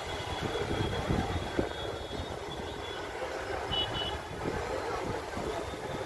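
Outdoor background noise: a steady low rumble, with a short high-pitched double chirp a little past halfway.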